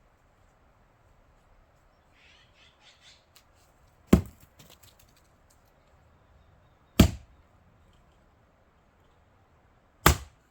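Fiskars X27 splitting axe striking and splitting pine firewood: three sharp chops about three seconds apart, after a few faint clicks.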